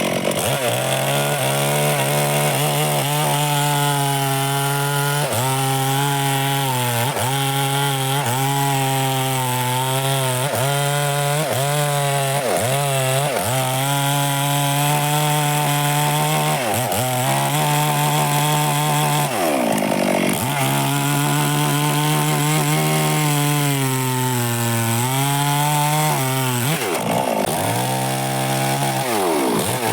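Two-stroke chainsaw held at high revs while cutting wood: its engine note dips again and again as the chain bites into the wood and bogs under load, then climbs back. Two longer, deeper dips come about two-thirds of the way through and again a little later.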